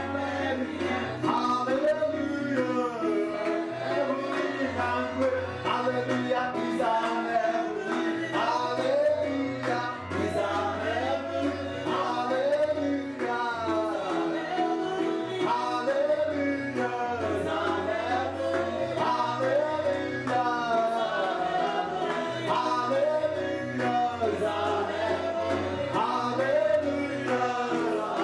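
Gospel worship song: voices singing together over keyboard accompaniment, with a bass line that changes note every second or two.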